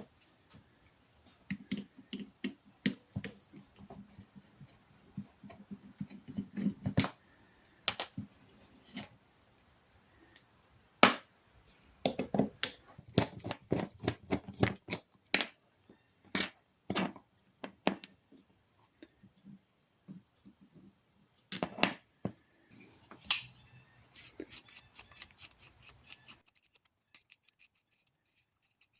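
Metal hand-tool work on a pair of vintage steel locking pliers during teardown: irregular clicks, taps and short scrapes of metal on metal, with one sharp knock about eleven seconds in. The sounds stop a few seconds before the end.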